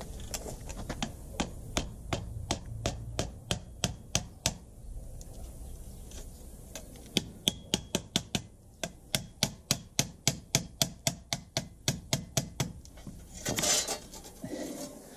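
Hand hammer striking a piece of sheet metal laid on a flat metal plate. Scattered taps at first, then a fast, even run of sharp blows at about three a second, with a short scraping rustle near the end.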